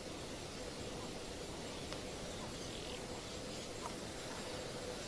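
Steady outdoor background hiss with a faint steady hum and a few faint, short high calls; no clear sound from the leopard or the porcupine.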